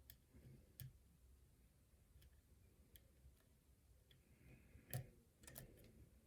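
Faint, scattered clicks of a lock pick and tension tool working the pins of a pin-tumbler challenge lock during single-pin picking, the loudest click about five seconds in.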